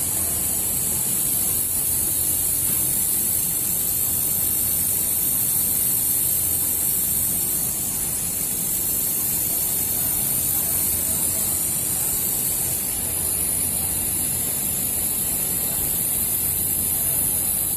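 Handheld fiber laser welder running: a steady high hiss with a low hum beneath it, unbroken and even throughout.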